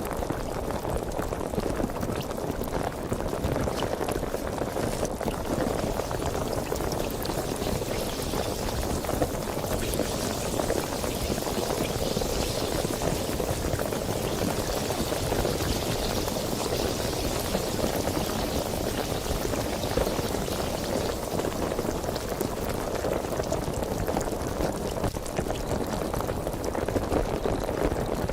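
Sparkling water fizzing steadily: a dense, even crackle of carbonation bubbles popping.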